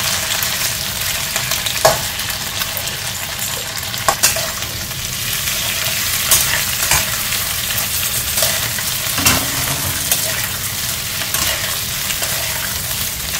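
Boiled potato pieces shallow-frying in hot oil in a metal kadai, sizzling steadily. A metal spatula scrapes and clinks against the pan now and then as the pieces are turned.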